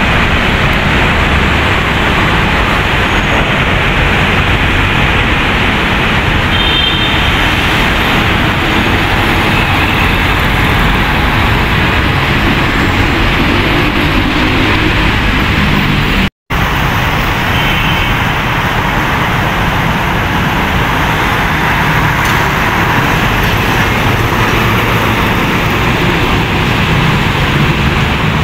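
Busy road traffic: trucks, cars and motorcycles passing in a steady, loud wash of engine and tyre noise. The sound drops out for an instant about halfway through.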